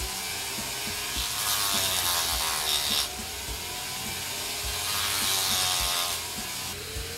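Handheld electric rotary tool running with a small bit, grinding and sanding a carved wooden figure. Its whine dips and recovers in pitch as the bit bears on the wood, and the grinding is loudest from about one and a half to three seconds in and again around five to six seconds.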